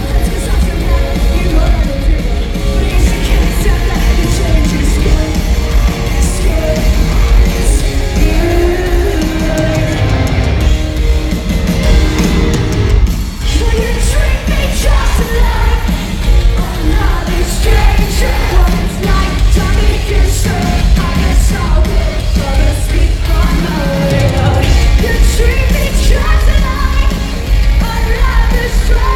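Loud live rock band playing in an arena, with a woman singing lead over guitars and drums and the crowd yelling along.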